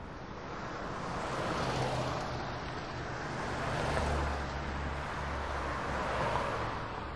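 Passing vehicle noise swelling and fading three times over a low rumble.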